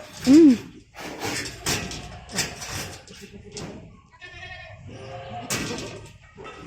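Goat bleating once: a short, loud call that rises and then falls in pitch just after the start. Scattered knocks and rustles follow, with a brief higher-pitched call about four seconds in.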